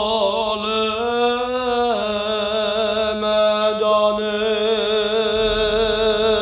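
A young man's voice singing one long, loud held note, wavering a little and stepping up briefly about a second in. It is bad enough to be answered with a complaint that he can't be listened to.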